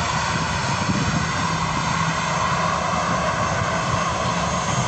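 AirAsia Airbus A320's jet engines running on the ground: a steady, even rush with a low hum and a held whine underneath.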